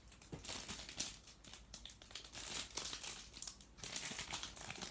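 Packaging crinkling and rustling in irregular bursts, with a few light clicks, as a large photobook is handled and taken out of its wrapping.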